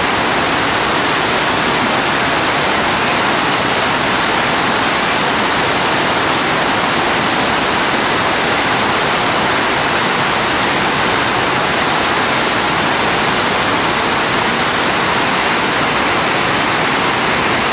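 Whitewater rapids rushing over and around large boulders, a loud steady wash of churning water that stays the same throughout.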